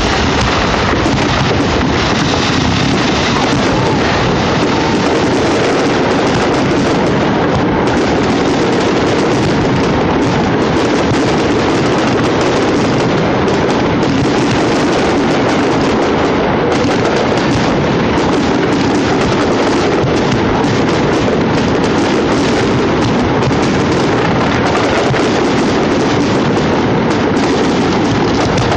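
Fireworks display going off in a loud, dense, continuous barrage of bangs and crackles with no pauses.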